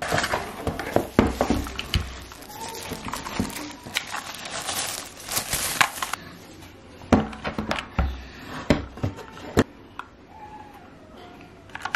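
Packaging being handled during a keyboard unboxing: rustling and crinkling with many small clicks for the first half, then a few sharp knocks, quieter near the end.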